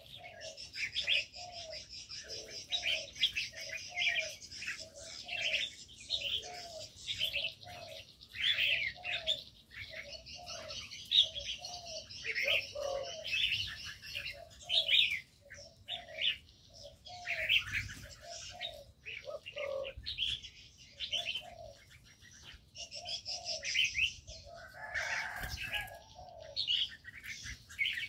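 Aviary birds calling: a low cooing note repeated about once a second from spotted doves, under busy chirps and whistled calls from red-whiskered bulbuls and other small birds.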